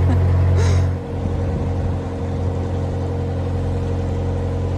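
Narrowboat engine running steadily under way, a low even drone that drops slightly in level about a second in.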